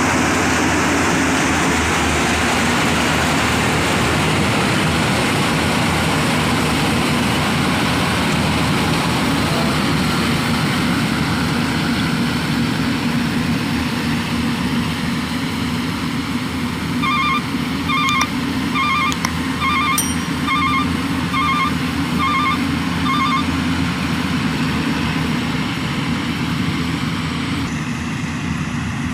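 Yanmar combine harvester's diesel engine and machinery running steadily at working speed. A short run of evenly spaced electronic beeps sounds over it for about six seconds past the middle.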